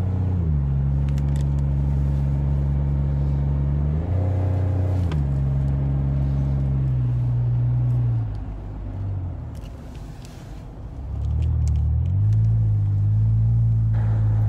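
Vehicle engine running under load, its pitch rising and falling as the revs change. It drops back quieter from about eight seconds in, then picks up again at about twelve seconds.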